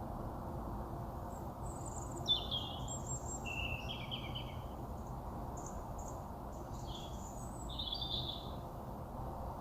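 Small birds chirping: short high calls and trills scattered from about two seconds in to near the end, the loudest around two seconds in and again near eight seconds, over a steady low background noise.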